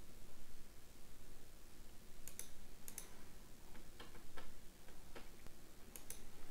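Computer mouse clicking: a string of short, sharp clicks, several of them in quick pairs, against faint room hiss.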